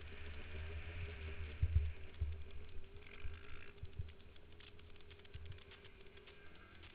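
Wind buffeting a helmet-mounted camera's microphone on a moving dirt bike, with several hard thuds from bumps in the rutted track and a steady tone underneath.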